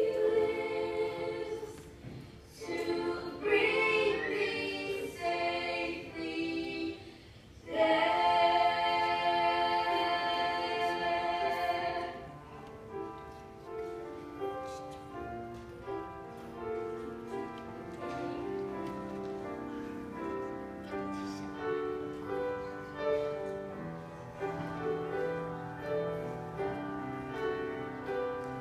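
Three women singing together in a large hall. About eight seconds in they hold one long loud note that breaks off at about twelve seconds, followed by a quieter passage of stepped notes.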